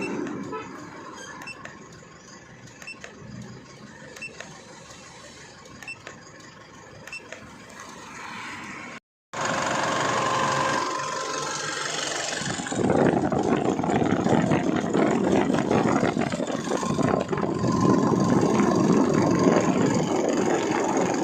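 Isuzu Altera's diesel engine running, moderate with faint ticking at first. After a sudden break it is much louder and harsher, and grows louder again about thirteen seconds in.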